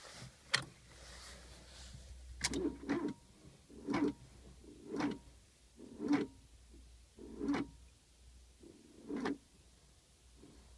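Fiat Punto 1.2 16V four-cylinder petrol engine being cranked by its starter at −34 °C, turning over very slowly in a row of separate heaves a second or more apart without firing. It won't start because it is too cold and the battery is low.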